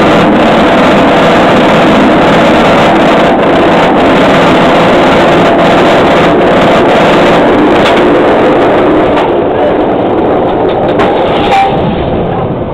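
B&M inverted roller coaster's chain lift running loud and steady under the train as it climbs the lift hill, with occasional sharp clicks. The noise thins out and drops off near the end as the train crests the hill.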